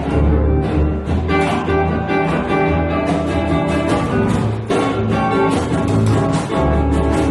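Live acoustic band music: upright double bass playing steady low notes under a strummed and picked acoustic guitar, with a few light percussion strokes.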